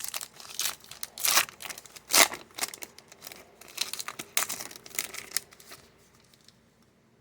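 Plastic-foil trading card pack wrapper crinkling and tearing under the hands: a run of sharp crackles that stops about five and a half seconds in.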